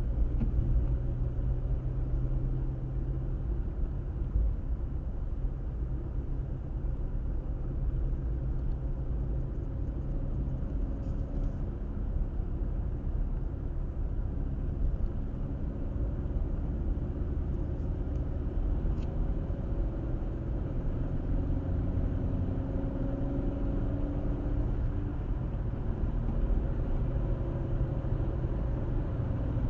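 Car driving on a road, a steady low rumble of tyre and road noise with an engine hum underneath. The engine note changes partway through, with a tone rising in pitch about two-thirds of the way in.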